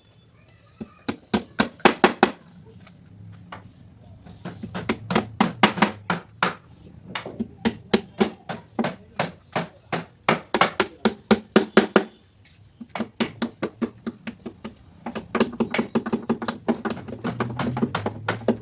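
Hammer striking wood in quick runs of sharp blows, several a second, with short pauses between the runs.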